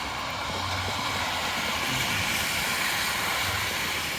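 Passing road traffic: tyre hiss and engine hum swelling toward the middle and easing off near the end.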